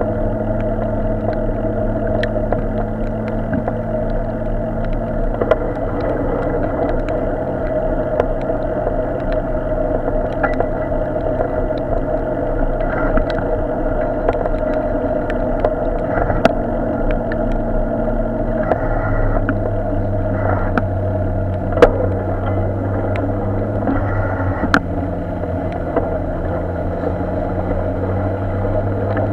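Road traffic in a jam: car engines idling and creeping in a queue, a steady low hum that changes pitch about two-thirds of the way through, with scattered sharp clicks.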